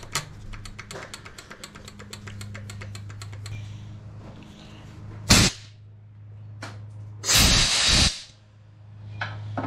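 Compressed air blown in hissing blasts through a clogged diesel fuel line: one short blast, then a longer one about two seconds later, with a smaller puff near the end. Before the blasts there is a fast light clicking, and a low steady hum runs underneath.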